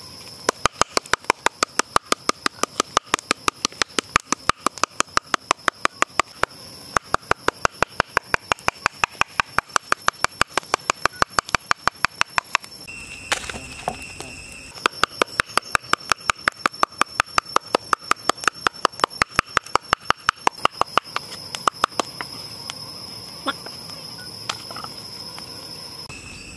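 Cleaver chopping raw snake meat into mince on a round wooden chopping board: quick, even chops at about four a second, stopping about twelve seconds in, resuming, then thinning out to a few scattered chops near the end.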